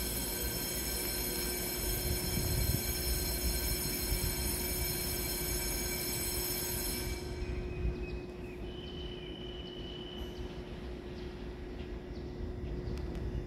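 TRA EMU3000 electric multiple unit standing at the platform, its onboard electrical equipment giving a steady whine of several high tones over a low hum. The high tones cut off suddenly about seven seconds in, leaving the hum.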